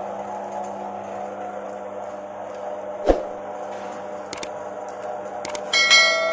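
Small stainless-steel jamu press for leaves and rhizomes running with a steady hum from its electric motor and gearbox as leaves are fed through, with a single thump about three seconds in. Near the end a bright chime rings out, a subscribe-button sound effect.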